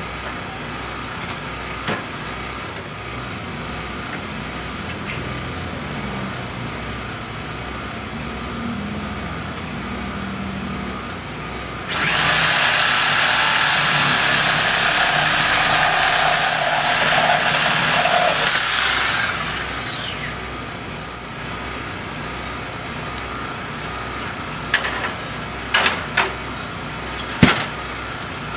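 A small high-speed motor runs loudly for about seven seconds, then winds down with a falling whine, over a steady engine rumble. A few sharp knocks follow near the end.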